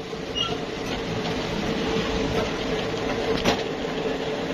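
Motorcycle wheel spun up to speed, driving the speedometer cable and drive gear: a steady whirr with a constant hum and one small click partway through. The freshly greased speedometer drive runs quietly, its former noise cured.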